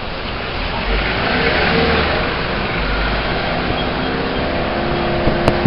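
Engine and road noise heard from inside a moving passenger vehicle: a steady rush with a low rumble. A few held tones come in near the end.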